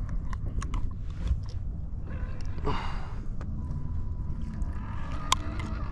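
Small clicks and knocks of a fish being handled aboard a kayak over a steady low rumble, with a short breathy sound about two and a half seconds in and one sharper click near the end.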